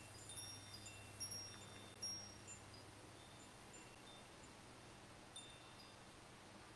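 Faint wind chimes tinkling: scattered high ringing notes at several different pitches, most of them in the first two and a half seconds, with a few more about five seconds in.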